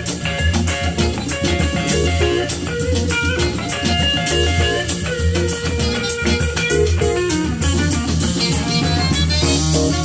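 Jazz with guitar and drums playing through a pair of 1988 MB Quart 280 two-way speakers, each with a titanium-dome tweeter and an 8-inch paper-cone woofer, in a sound test of the speakers.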